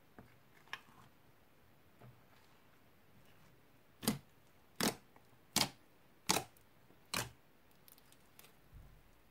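Fingertips pressing into crunchy, bead-filled slime, making five short, sharp pops evenly spaced under a second apart, starting about four seconds in. A few faint clicks come earlier.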